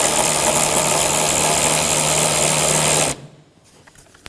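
Power tool with a 10 mm socket spinning out a door panel retaining bolt, running steadily for about three seconds and then stopping abruptly.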